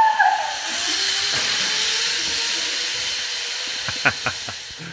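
Zip-line pulley trolley running along a steel cable: a steady hiss with a faint thin whine, fading toward the end, then a few sharp clicks about four seconds in. A short rising cry at the very start.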